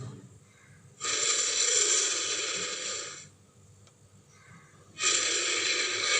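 American lion sound effect: two long, breathy, hissing exhalations from a big cat. The first starts abruptly about a second in and lasts about two seconds. The second starts about five seconds in.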